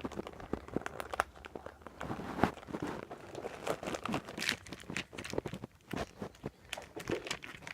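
Paper and plastic crinkling and rustling as sticker sheets and craft items are handled, with many irregular small clicks and taps.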